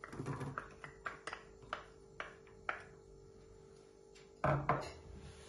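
Chopped onion being tipped into a nonstick saucepan with oil: a run of light taps and clicks as the pieces drop, then a single louder knock about four and a half seconds in.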